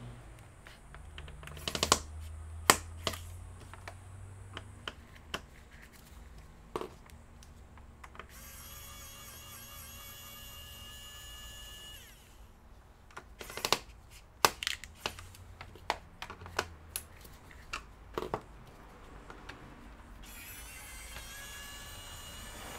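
Sharp clicks and light knocks of small laptop parts and tools being handled on a workbench during disassembly. There are two stretches of a wavering high whine: one in the middle lasting about four seconds, and a second starting near the end.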